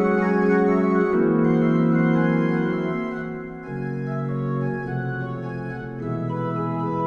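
Organ playing a ragtime piece: sustained, wavering chords that change about once a second, with a brief dip in volume around the middle.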